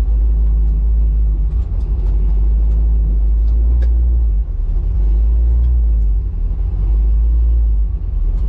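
1967 Chevy Nova's small-block V8 running as the car drives, a steady deep exhaust drone with brief dips in loudness about halfway through and near the end.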